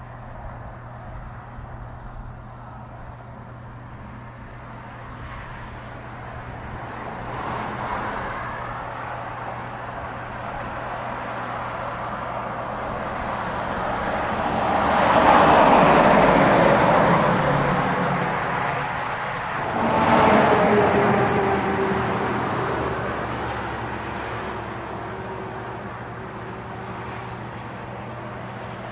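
Heavy trucks (semi-trailers or B-doubles) passing at highway speed, with engine and tyre noise. It builds to a loud peak about halfway through and a second peak a few seconds later, where the engine pitch drops as the truck goes by, then fades away.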